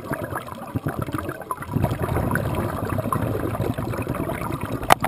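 Underwater bubbling and gurgling from a scuba diver's regulator exhaust, heard muffled through a GoPro's waterproof housing, with a single sharp click near the end.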